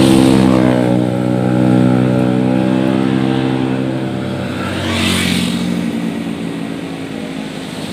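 Kawasaki Ninja RR's 150 cc two-stroke single revving hard as the bike runs past, its pitch dropping about a second in and the sound then slowly fading. A brief rush of hiss comes about five seconds in.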